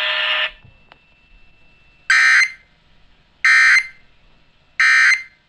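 Emergency Alert System end-of-message data bursts: three short, harsh digital squawks about a second and a half apart, marking the end of the severe thunderstorm warning. A steady buzzing noise cuts off about half a second before them.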